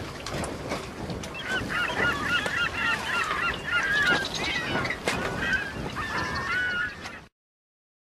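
A flock of birds calling over one another: many short, rising-and-falling calls repeated rapidly over a rough, noisy background. It stops abruptly near the end.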